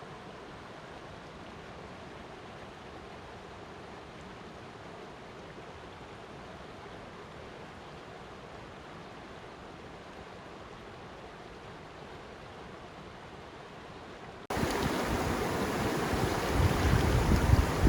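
Flowing water rushing steadily. About fourteen seconds in it cuts abruptly to a much louder, rougher rush of water with low rumbling surges.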